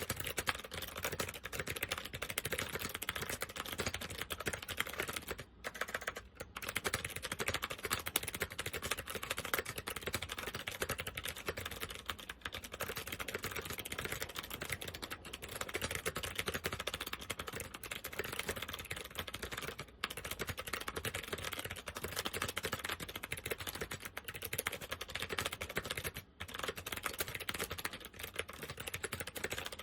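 Fast, continuous typing on a keyboard with clicky SMK second-generation switches, with a couple of brief pauses. The switches are not in great condition.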